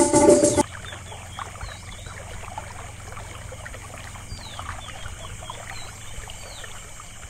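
Sitar music cuts off suddenly about half a second in, leaving a soft ambience of trickling, flowing water dotted with short, high, falling chirps.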